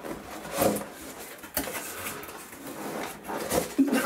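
Cardboard box packaging being handled: the inner tray slides and scrapes out of its outer sleeve, with a few sharp knocks.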